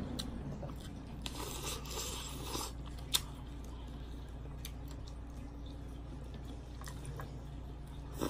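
Quiet close-up eating sounds: shellfish picked at and pulled apart by hand, with soft chewing. There are scattered small clicks, and one sharper click about three seconds in.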